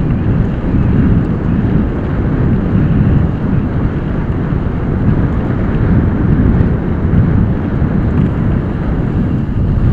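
Wind buffeting the microphone during a fast mountain-bike descent, mixed with the rumble of tyres rolling over a dirt trail; a loud, steady low rush that never lets up.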